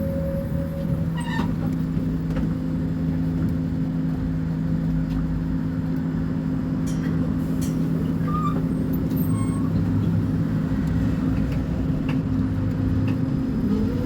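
Scania K270IB bus diesel engine running at a steady speed with a low rumble and hum, then its pitch starts rising near the end as it speeds up.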